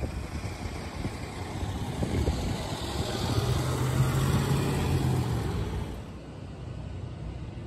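A car driving past over the crossing: tyre and engine noise swells to a peak with a steady low hum about four seconds in, then fades. The sound drops away suddenly about six seconds in.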